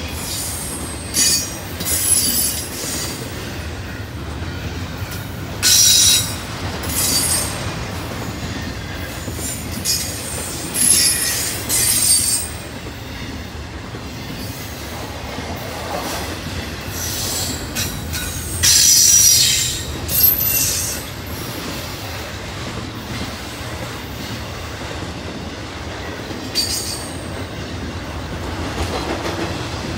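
A train rolling past with a continuous rumble of steel wheels on rail, broken again and again by short high-pitched wheel squeals that come and go, the longest and loudest about two-thirds of the way through.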